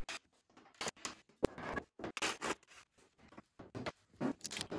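Scattered short scrapes, rustles and knocks of wooden parts being handled as an old screwed-together table is taken apart, with one sharp knock about a second and a half in.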